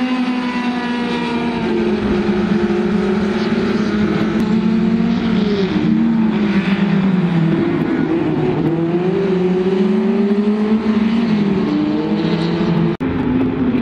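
Engines of two small hatchback race cars running hard, side by side. The pitch falls several times as they lift and brake into corners and climbs again as they accelerate out. The sound drops out for an instant near the end.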